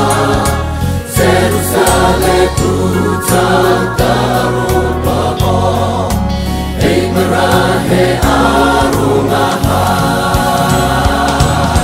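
Gospel choir song: several voices singing together over instrumental backing, with a bass line that moves from note to note about once a second.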